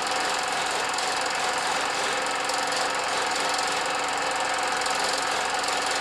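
A steady, rapid mechanical clatter over a constant hiss, with a faint steady hum underneath.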